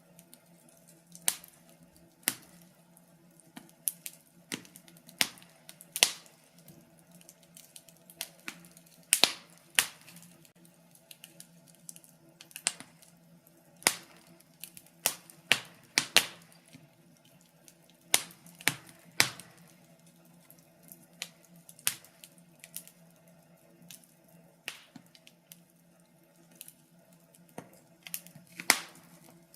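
Wood fire crackling, with irregular sharp pops, sometimes several close together and sometimes a second or two apart, over a faint steady hum.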